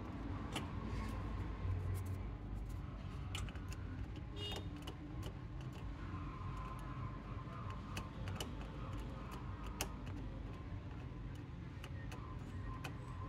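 Scattered small clicks and taps of hand tools working on a TV power supply circuit board, over a steady low hum.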